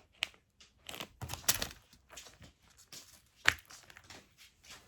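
Handling noise from a toy being turned over and fiddled with: irregular clicks, knocks and crinkles, with one sharp click about three and a half seconds in.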